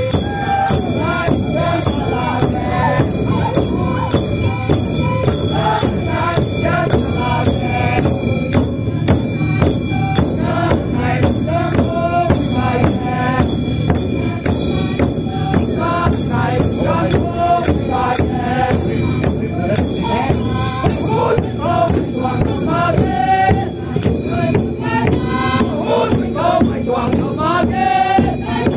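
Traditional Rongmei song: a group of men singing together in unison over large rope-laced wooden drums beaten with sticks in a steady beat.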